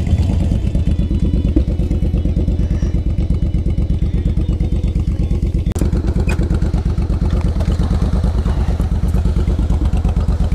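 Motorcycle engine idling with a steady, even pulse, with a single sharp click a little past halfway.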